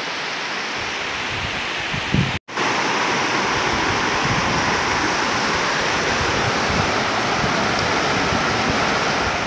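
River water rushing over rocks in a shallow rapid, a steady noise. It breaks off for an instant about two and a half seconds in and comes back louder; before the break, wind buffets the microphone.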